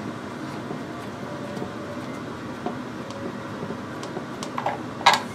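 Screwdriver working a toilet seat's hinge bolt: faint ticks over a steady background hiss, then a sharp knock near the end.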